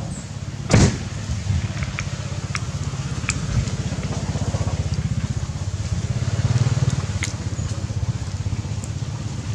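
A steady low engine rumble with a fast even pulse, like a small motor idling, swelling a little in the second half. A loud knock about a second in and a few light sharp clicks over it.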